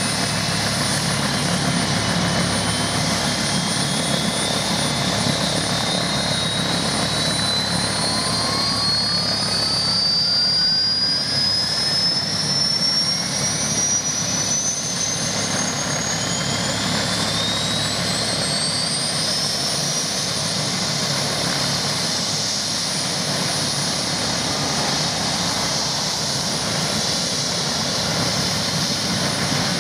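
Bell Huey helicopter's turbine engine and main rotor running on the ground during start-up: a whine climbs steadily in pitch as the engine and rotor come up to speed, then levels off about two-thirds of the way through and holds steady under the rotor noise.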